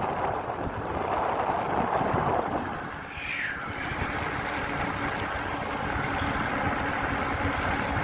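Wind buffeting the microphone and e-bike tyres hissing over a wet, rain-soaked trail, with a short falling squeak about three seconds in.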